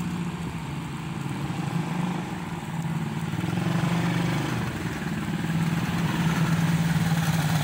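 A steady low mechanical hum from a running motor, growing a little louder about halfway through.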